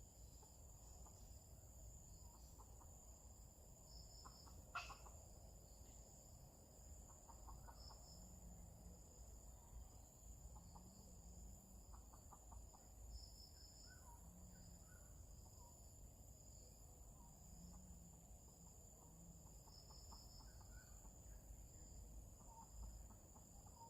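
Faint, scattered clucking of junglefowl under a steady high insect drone, with one sharp click about five seconds in.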